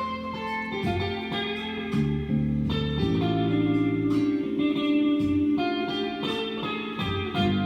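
Background music led by guitar, with a bass line and chord changes about every second.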